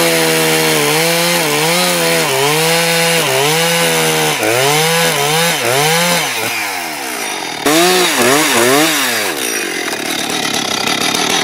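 Large chainsaw cutting through a conifer log freehand. The engine pitch sags and recovers again and again as the chain bites, and rises and falls more widely in the second half.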